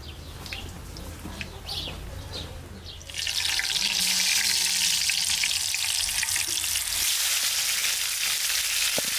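Birds chirping briefly, then about three seconds in a loud sizzle starts suddenly and keeps on: raw potato wedges going into hot oil in a frying pan and frying.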